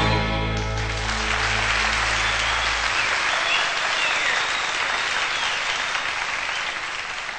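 A country band's final chord rings out with held low notes for about three seconds while an audience breaks into applause, which carries on after the music stops and begins to fade near the end.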